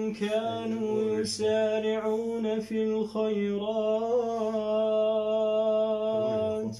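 A male reciter chanting Quran recitation in melodic tajweed style, holding long drawn-out notes with ornamented pitch turns. The voice breaks off just before the end for a breath.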